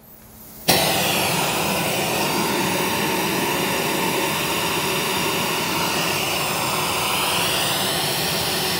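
Pink noise test signal played through a Harley-Davidson touring motorcycle's audio system speakers, starting abruptly about a second in and then holding steady. It is the reference signal for measuring the system's frequency response with a real-time analyzer while setting the radio's EQ.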